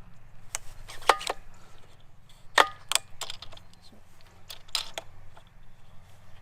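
Sharp clicks and knocks, several with a brief metallic ring, spaced irregularly about a second apart: the parts of a telescopic petrol pole saw being handled and clipped together while it is set up, with the engine not running.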